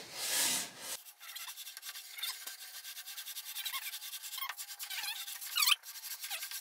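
Board slid by hand across the stationary, 60-grit sandpaper-covered drum of a Flatmaster drum sander, a dry rubbing scrape that shows the drum is touching the wood. The scrape is strongest in the first second, then goes on as fainter scratching with small ticks and a few squeaks.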